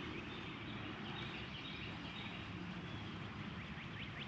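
Small birds chirping, with a quick trill near the end, over a steady low rumble of wind on the microphone.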